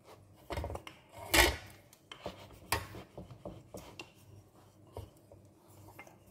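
Slices of sandwich bread being handled on a wooden chopping board: light taps and scraping rubs, with sharper knocks about one and a half and three seconds in.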